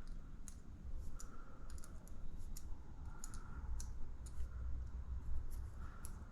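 Irregular light clicks and ticks of small RC shock parts and a small wrench being handled on a workbench during shock assembly.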